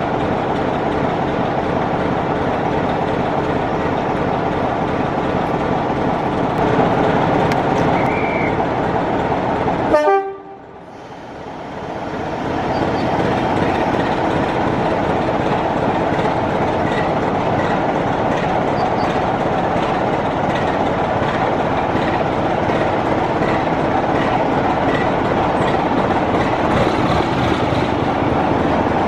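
A train running on the line, a loud steady mechanical din with a brief high tone about eight seconds in. About ten seconds in the sound cuts off suddenly and fades back up to the same steady running noise.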